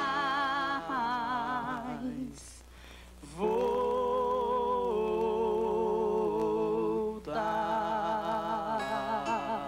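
Two male voices sing long held notes in harmony, with a wavering vibrato, over acoustic guitars. The notes break off about two seconds in and resume about three and a half seconds in, with a short break near seven seconds.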